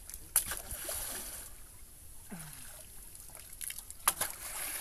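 A long bamboo pole slapping and sweeping through shallow stream water. There are two sharp splashes, one about half a second in and one near the end, each followed by a brief swish of water.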